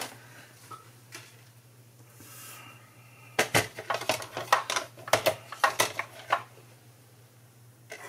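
Hard plastic cutting plates and a die being handled and fed into a Stampin' Cut & Emboss die-cutting machine: a soft scrape about two seconds in, then a quick run of sharp clacks and knocks.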